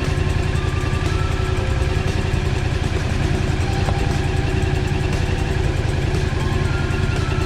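Yamaha MT-07 motorcycle's parallel-twin engine idling steadily, with no revving.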